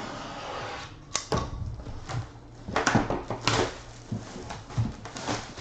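A few sharp clicks and taps, scattered unevenly, with light rustling between them.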